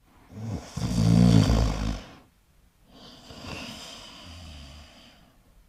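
A person snoring: a loud snore of nearly two seconds, then, after a short pause, a quieter, breathier one.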